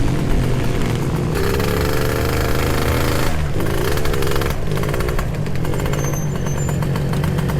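Two-stroke motorcycle engine, a Suzuki Satria 2T, running under way with a rattly exhaust note. Its pitch climbs and falls as the throttle works, with a short lift-off about three seconds in, as at a gear change.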